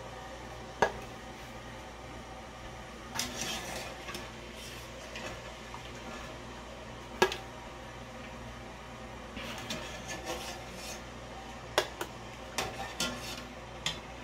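Wire skimmer scraping and clinking against a metal pot while blanched squash slices are scooped out of the water. A few sharp clinks stand out, about a second in, around seven seconds in, and twice close together near the end, over a low steady hum.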